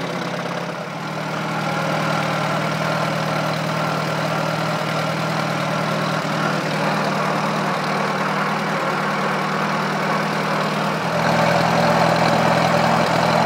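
Engine of a 1953 Allis-Chalmers IB tractor, a four-cylinder, running steadily while the tractor is driven. It gets a little louder about eleven seconds in.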